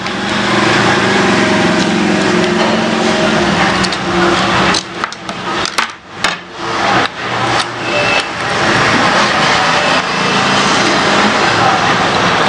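A steady engine noise, like a motor running close by, fades for a few seconds about halfway through. A few sharp clicks and knocks of hand tools are heard in that gap.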